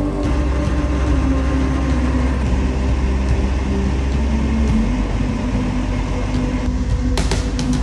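Heavy diesel engine running steadily with a deep, continuous rumble; the rumble eases slightly partway through. A few sharp knocks come near the end.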